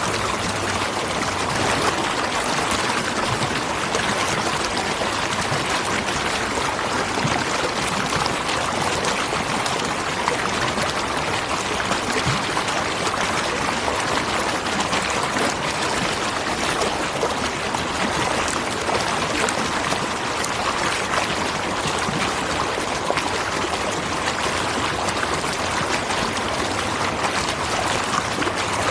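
Waterfall: a steady, even rush of falling and splashing water with no breaks.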